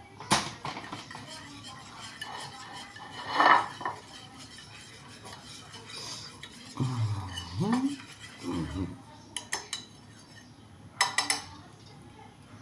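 Wire hand whisk stirring thick cookie batter in a glass bowl, clinking now and then against the sides, with a quick run of sharp clinks near the end.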